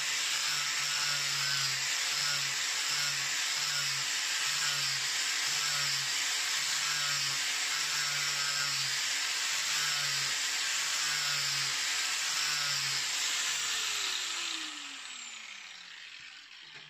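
Angle grinder with a foam-backed 120-grit sanding disc grinding an axe's edge to a convex bevel, running steadily with a low hum that comes and goes about once a second. Near the end it is switched off and its whine falls as it spins down.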